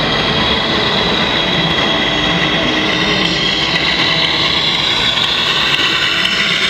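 Radio-controlled model Scania truck driving: a steady high whine from its electric drive and gearing over a constant rumble, growing a little stronger as it comes closer.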